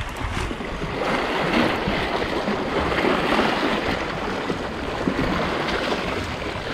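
Small sea waves washing and splashing against shoreline rocks, a steady rushing that swells slightly about a second in.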